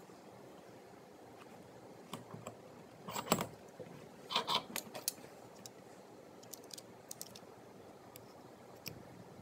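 Workbench handling sounds of a wooden dowel and a snap-off craft knife: a sharp knock about three seconds in, a quick clatter of clicks a second later, then scattered light ticks as the knife is set to score along the dowel.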